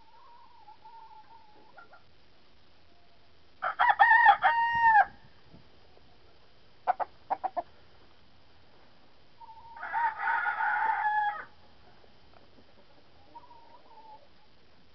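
Bantam rooster crowing: a short, loud crow about four seconds in and another, rougher one about ten seconds in, with a few short clucks between and faint hen calls around them.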